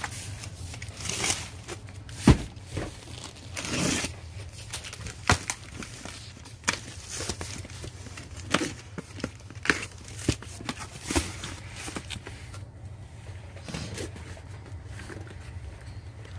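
Cardboard shipping carton being handled and slit open with a box cutter: scattered knocks, scrapes, crinkling and the tearing of tape and cardboard flaps, with one sharp knock about two seconds in.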